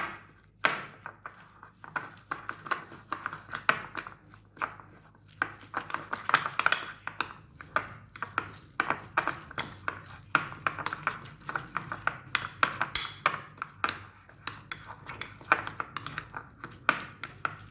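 A spoon stirring a thick yogurt-and-spice marinade in a bowl, scraping and clinking against the bowl in quick, irregular strokes.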